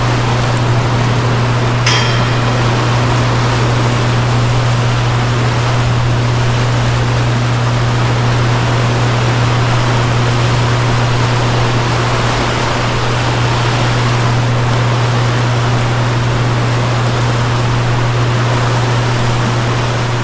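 Steady rush of flowing river water with a deep, constant rumble beneath it, and one short sharp click about two seconds in.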